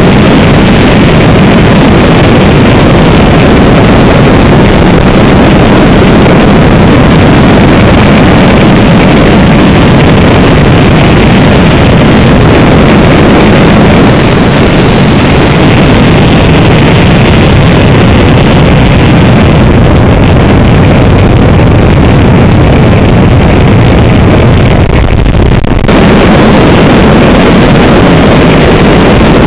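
Honda CBR600 inline-four motorcycle riding at road speed, its engine drone blended with heavy wind noise on the bike-mounted camera's microphone, loud and steady throughout.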